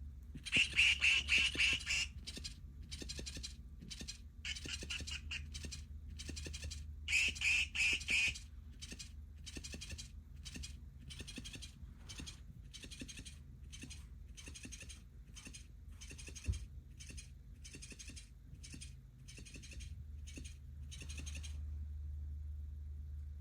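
Kitten purring loudly close to the microphone, a rattling purr in a long run of short bursts, loudest near the start and again about a third of the way in.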